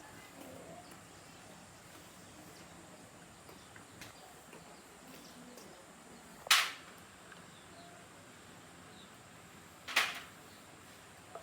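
Two sharp knocks about three and a half seconds apart, with a fainter tap before them, over low steady background noise.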